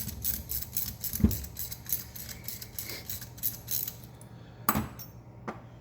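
Hand socket ratchet clicking rapidly as a bolt is turned out of the axle carrier. The clicking stops about four seconds in, followed by a couple of sharp metal knocks.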